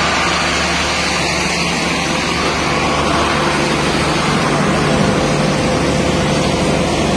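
Air compressor running steadily: a loud, even rush of noise with a low hum underneath.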